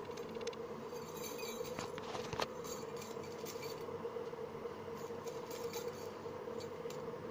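A few faint, light clinks of stacked bangles knocking together on a moving wrist, over a steady background hum.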